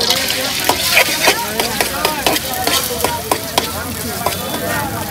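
Beaten egg sizzling as it fries in a hot iron pan, with a metal fork clicking and scraping against the pan as it spreads the egg.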